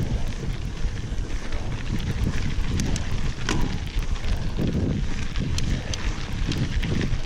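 Wind buffeting the microphone while a mountain bike rolls fast over a gravel fire road, with the tyres crunching on gravel and the bike rattling in scattered sharp clicks.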